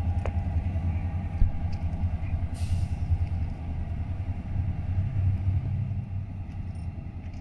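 Ferromex diesel freight locomotives moving slowly, their engines giving a deep steady rumble. A single knock comes about a second and a half in, and a short hiss of air about two and a half seconds in.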